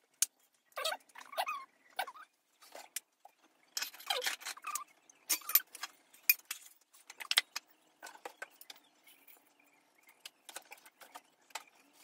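Kitchen knife cutting a cucumber on a plastic cutting board: irregular clicks and knocks of the blade striking the board, mixed with scraping and handling of steel bowls.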